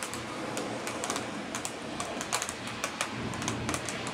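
Irregular sharp ticks, several a second, over a steady background hiss.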